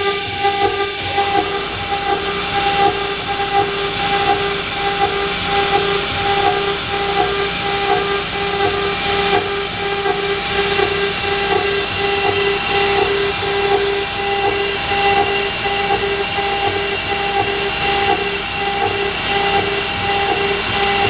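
5.5 kW water-cooled CNC router spindle running, its bit grinding into a granite slab: a steady whine over a rough grinding noise.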